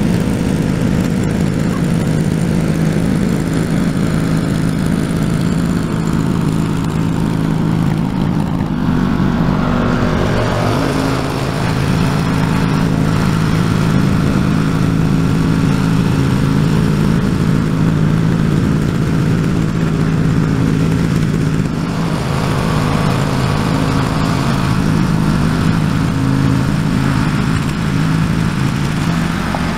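Walk-behind garden tiller's small petrol engine running steadily under load as its tines churn the soil, holding one steady pitch. The sound turns brighter through the middle stretch as the tiller works close by.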